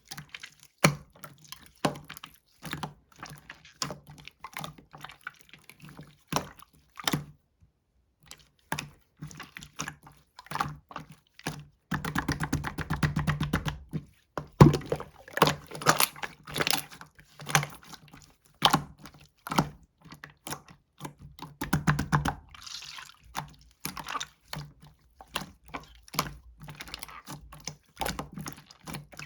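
Clear slime being squished and worked by hand: a steady run of small wet clicks and pops, thickest about twelve seconds in and again around twenty-two seconds in.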